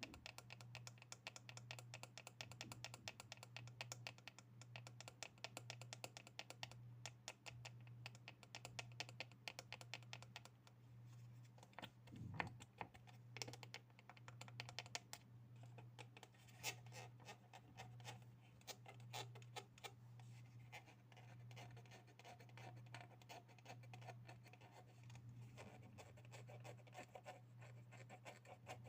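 Quiet, fast tapping on objects: runs of light clicks in quick succession, over a faint steady low hum.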